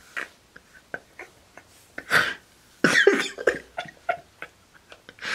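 A person's voice making two short, breathy, cough-like bursts about two and three seconds in, with a few faint clicks between.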